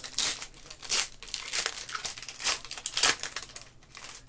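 Foil trading-card pack being torn open and its wrapper crinkled in the hands, a run of sharp crackles, the loudest about one second and three seconds in.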